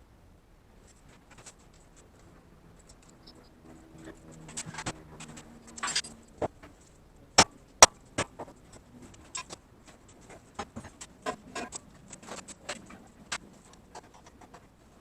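Metal parts and hand tools being handled on a workbench: scattered clicks, clinks and knocks that begin a few seconds in, with two sharp knocks close together about halfway.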